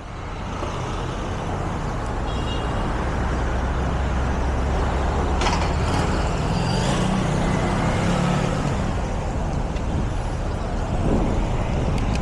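Street traffic noise: cars and other road vehicles passing, with a steady low rumble underneath.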